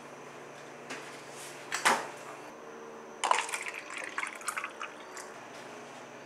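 A soft knock, then a louder thump about two seconds in, followed by about two seconds of splashing and clinking as a drink is poured into a clear plastic cup.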